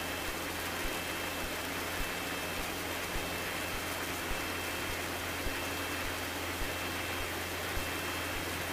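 Cessna 150's four-cylinder Continental O-200 engine and propeller running steadily in flight: an even drone under a loud rush of air. A faint tick recurs a little more often than once a second.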